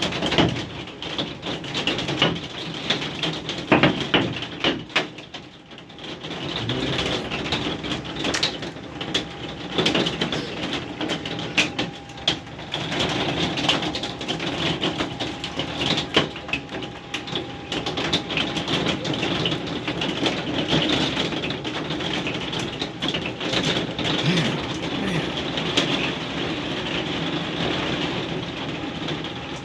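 Hailstones pelting down in a dense clatter of many small hits over a steady rushing hiss.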